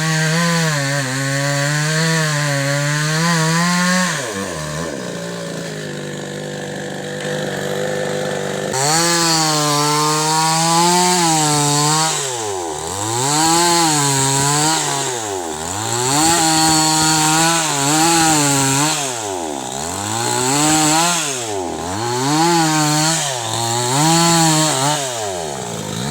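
Chainsaw running hard while cutting wood. About four seconds in the engine slows and runs lower for a few seconds, then revs back up, and from about twelve seconds its speed dips and recovers over and over, roughly every second and a half.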